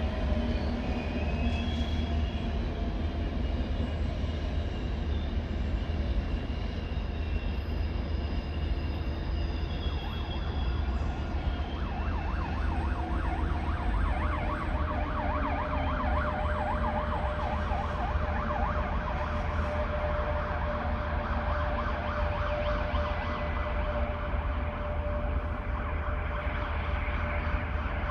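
Electric passenger train rumbling past on the tracks. From about twelve seconds in, an emergency vehicle siren joins it, its pitch rising and falling rapidly over and over.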